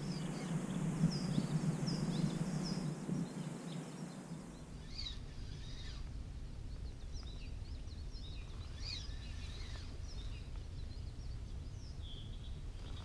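Birds chirping with short calls here and there, with a low rushing noise underneath for the first four seconds or so.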